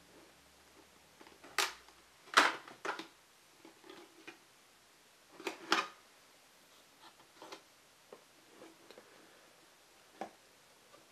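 Cardboard camera box being opened by hand: the outer sleeve slides off and the inner box's top flap is lifted. It gives a string of short, sharp scrapes and taps, loudest about two and a half seconds in and again around six seconds.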